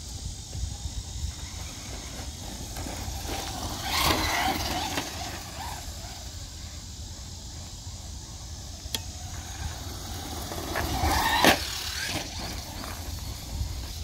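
Traxxas Slash 4X4 Ultimate RC truck driving on grass, its electric motor whining as it passes about 4 seconds in and again near the end, the second pass rising in pitch and cutting off sharply, over a steady low rumble.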